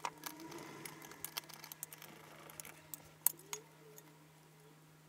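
A scatter of light metallic clicks and clinks as the sheet-metal shield over an LCD monitor's power supply board is worked loose with a screwdriver and lifted off. The sharpest click comes a little past three seconds in, and it goes quieter near the end.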